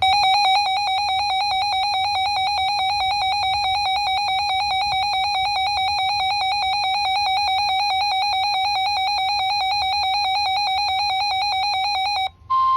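A weather alert radio's electronic alarm: a buzzy tone warbling rapidly between two close pitches, sounding steadily for about twelve seconds and then cutting off. Near the end the steady 1050 Hz NOAA Weather Radio warning tone comes in, announcing a warning.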